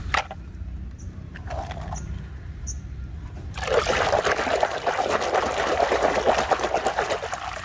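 Water pouring and splashing over a muddy toy fire truck as it is washed, starting about halfway through and going on as a steady rush. Before that there is only a low rumble and a few light knocks of handling.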